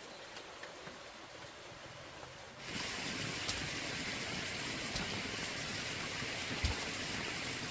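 A steady rushing noise like falling or running water starts abruptly about three seconds in, with a few soft knocks in it, the clearest a low thump near the end.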